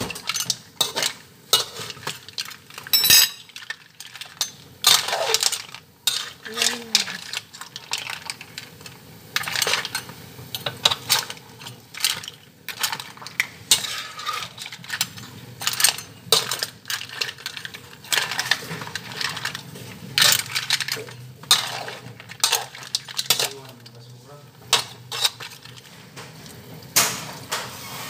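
A metal utensil clinking and scraping against a cooking pan as food is stirred, in irregular sharp knocks one or two a second.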